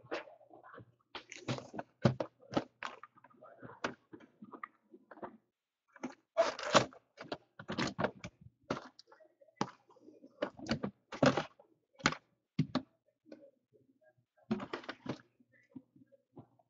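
Cardboard trading-card hobby boxes being picked up, slid and set down on a wooden table, giving a string of irregular knocks and thumps with short pauses between them.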